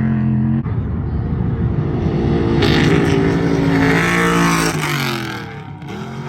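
Off-road race truck engine at full throttle passing close by, its note holding high and then dropping in pitch and fading after about five seconds as it goes away. There is a short break in the engine note about half a second in, and a rush of hiss from about three to five seconds in.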